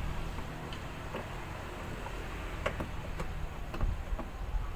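A few scattered light clicks and taps from hands and tools working on metal parts in a diesel truck's engine bay, over a low background rumble.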